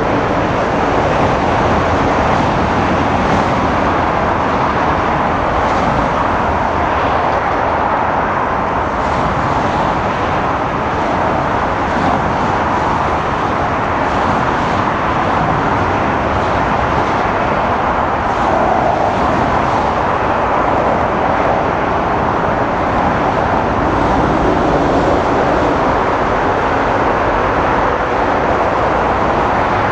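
Jet engines of a FedEx Boeing 777 freighter during its landing and runway roll-out, a loud, steady, even roar.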